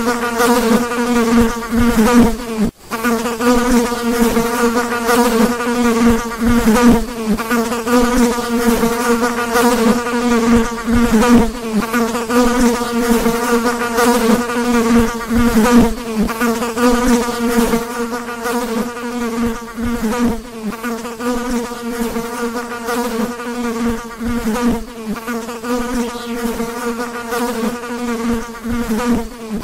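A fly buzzing: one continuous, slightly wavering buzz of beating wings, broken once for a moment about three seconds in.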